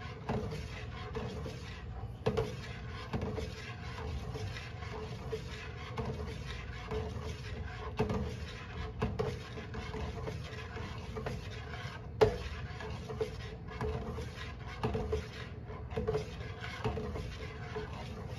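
Long metal spoon stirring soy milk in a large stainless-steel stockpot, with repeated soft scraping strokes against the pot and a few light clinks, the sharpest about 12 seconds in, as the milk heats toward a boil.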